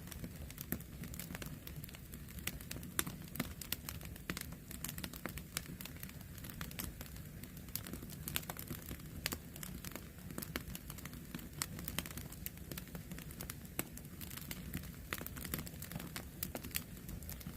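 Wood campfire crackling: many small irregular pops and snaps from burning firewood over a low steady rumble.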